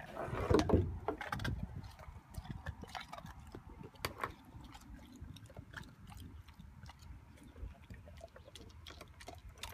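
A puppy chewing and mouthing at scraps on wooden decking: a run of small crunches and clicks, loudest in the first second.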